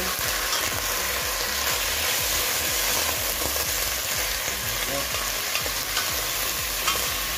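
Mixed vegetables sizzling steadily in hot oil in a stainless steel pot while being stirred with a wooden spatula, with the scrape and occasional knock of the spatula against the pot; the loudest knock comes near the end.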